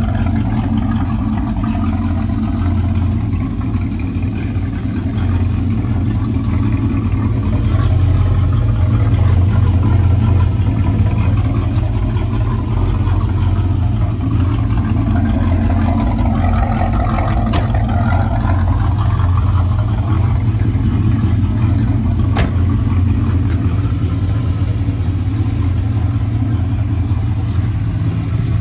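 Chevrolet Monte Carlo SS V8 idling steadily through a Black Widow true dual exhaust, with a deep, even rumble. Two sharp clicks are heard, one a little past halfway and one about five seconds later.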